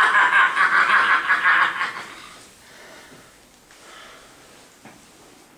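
A man laughing: a loud, drawn-out laugh for about two seconds that then dies away.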